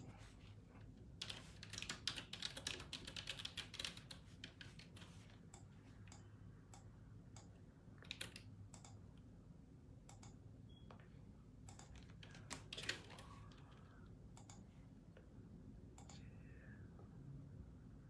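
Faint typing on a computer keyboard: a quick run of keystrokes in the first few seconds, then scattered single key clicks over quiet room tone.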